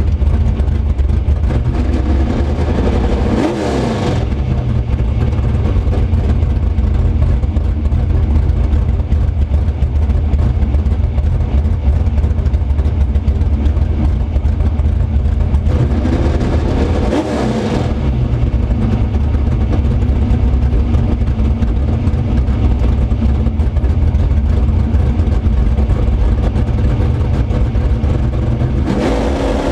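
Chevrolet S10 drag-racing truck's engine idling loudly, heard from inside the cab. The driver blips the throttle briefly about three and a half seconds in and again about seventeen seconds in, and the engine starts to rev up near the end.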